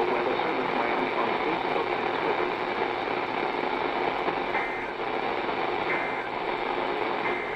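Steady hiss of static from a weather radio receiver, with a few faint short blips in the second half.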